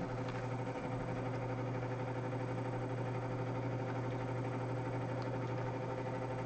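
Steady low hum, even and unbroken, with a buzzy edge.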